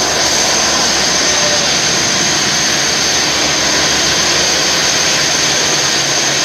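A passenger launch's diesel engine running loud and steady on its lower deck: a dense, even engine noise with a steady high whine over it.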